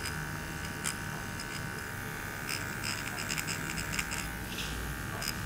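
Dr.Pen Ultima A8S microneedling pen running at its lowest speed while it is moved over the skin, a steady faint electric buzz with a thin high whine, and a few light clicks.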